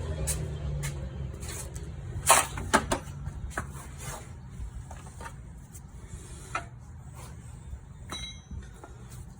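Sharp metallic knocks and clinks of tools on a strut-to-knuckle bolt as the bolt is worked out of the knuckle. The loudest three come close together a little over two seconds in, with fainter clinks after.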